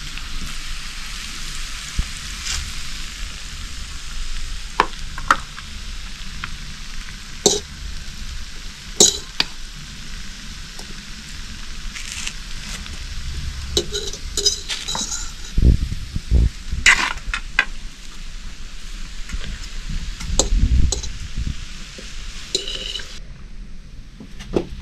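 A metal fork clinking and scraping against a metal pan and plates while spaghetti is served, with a few dull knocks, over a steady hiss.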